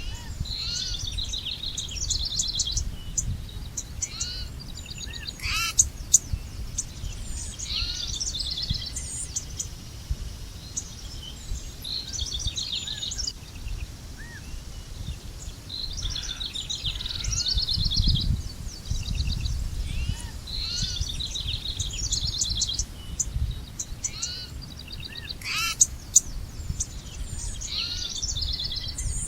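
Several birds chirping and trilling in short repeated phrases, over a steady low rumble.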